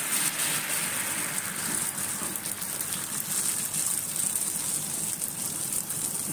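Rice-and-spinach ghavne batter sizzling on a hot cast-iron griddle, a steady even hiss as the thin crepe sets.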